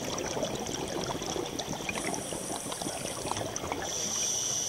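Water noise with a steady rush and many small bubbling pops, and a faint high whine that grows stronger near the end.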